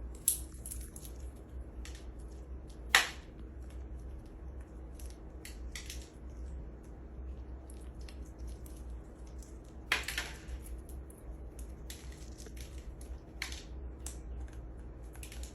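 Parrot cracking and crunching a pistachio in its beak: irregular sharp cracks and small clicks, the loudest about three seconds in and again about ten seconds in, over a low steady hum.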